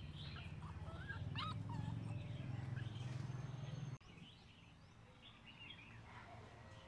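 Short high squeaky whimpers from young animals, a puppy and a baby macaque, over a low rumble that cuts off suddenly about four seconds in; fainter short chirping calls follow.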